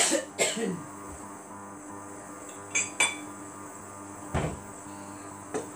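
Kitchen dishes, utensils and glassware clinking and knocking: a handful of separate sharp clinks, the loudest right at the start and one near three seconds with a short ring, and a duller thud about four and a half seconds in.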